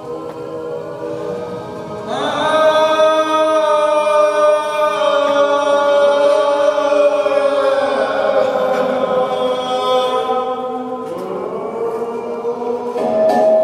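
Voices chanting long held notes in a concrete cellar. A new chord swells in about two seconds in and holds for several seconds, and another rises near the end.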